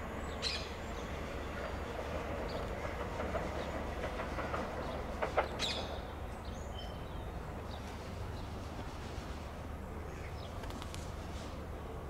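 Electric multiple-unit train moving along the track, its wheel and rail noise building to a peak about five seconds in, with a sharp click, then easing off.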